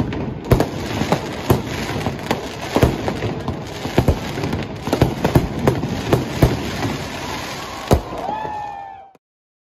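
Many fireworks and firecrackers going off at once: a continuous crackle with frequent sharp bangs several times a second, one of the loudest about eight seconds in. A falling whistle follows just before the sound cuts off.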